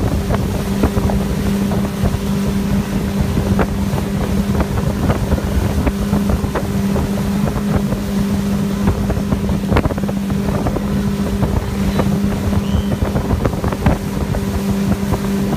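Motorboat engine running steadily at speed while towing a tube, a constant hum, with wind buffeting the microphone.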